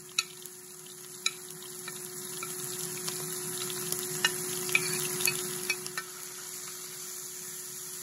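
Diced beef sizzling in hot oil in an electric skillet, the sizzle growing louder from about two seconds in. Sharp clicks of a metal fork tapping and scraping on a ceramic plate as spices are pushed into the pan, with a steady faint hum underneath.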